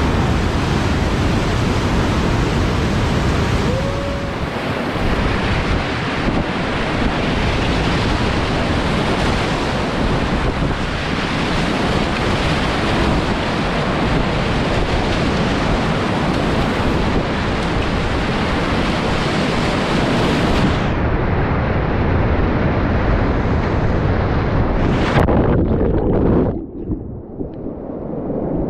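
Whitewater of a river rapid rushing and splashing as a dense, steady noise. About three-quarters of the way through the sound turns duller, and near the end it drops in level.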